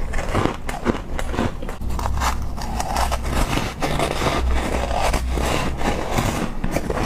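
Ice being bitten and chewed close to the microphone: a dense run of sharp crunches and crackles of ice breaking between the teeth, with a low rumble through the middle of the chewing.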